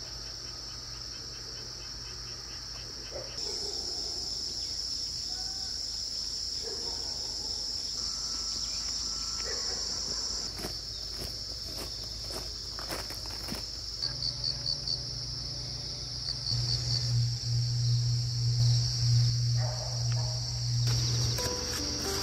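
Crickets chirring in a steady, high, continuous trill. A few light knocks come about ten to thirteen seconds in, and a low hum rises beneath the trill over the last few seconds.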